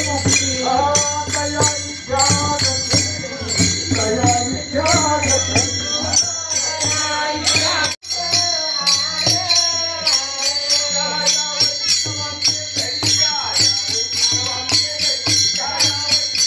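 A group of men singing a Warkari devotional bhajan to the beat of small hand cymbals (taal) and a pakhawaj barrel drum. The cymbals ring steadily over the singing, and the sound cuts out for an instant about halfway through.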